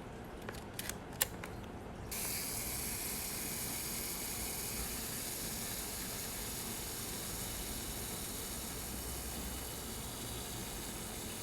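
A few light clicks, then the mechanical self-timer of a Yashica TL-Electro 35mm SLR starts about two seconds in and runs with a steady clockwork whir as it counts down to release the shutter.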